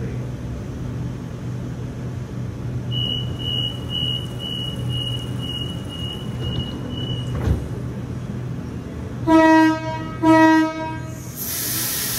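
Sydney electric passenger train at a station, running with a steady low hum. A quick run of about ten short high beeps, then two short blasts of the train horn about a second apart, followed by a hiss near the end.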